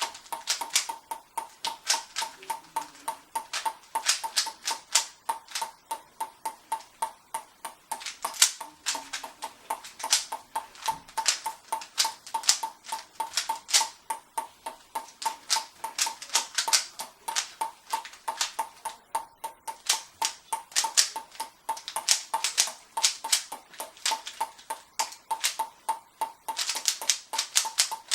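Ping pong ball bouncing steadily on a paddle, a sharp hollow click about three times a second with a short ring.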